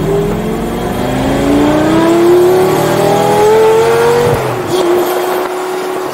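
2004 Lamborghini Gallardo's straight-piped 5.0-litre V10 accelerating hard, its pitch rising steadily through one gear. About four seconds in the throttle is lifted and the engine falls back to a steady lower note.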